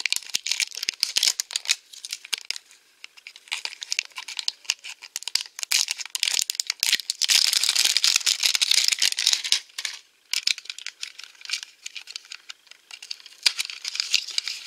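Clear plastic shrink-wrap being peeled and pulled off a plastic toy box, crinkling and crackling, with a longer run of steady crinkling about seven seconds in.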